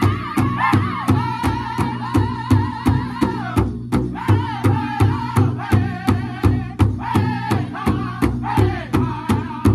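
A powwow drum group singing an intertribal song in high, wavering voices over a large powwow drum struck in unison with padded sticks, a steady beat of about three strokes a second. The singing breaks off briefly about four seconds in while the drumbeat carries on.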